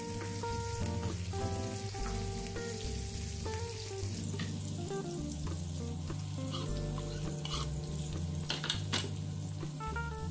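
Sliced red onions sizzling in hot oil in a frying pan, stirred with a wooden spoon, with a few sharper scrapes and clicks about eight to nine seconds in as minced garlic is added. Soft background music with a slow melody plays underneath.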